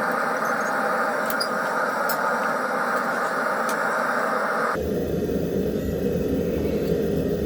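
Forge burner running with a steady rushing noise, with a few faint metallic ticks. About two-thirds of the way through the noise abruptly turns deeper and lower.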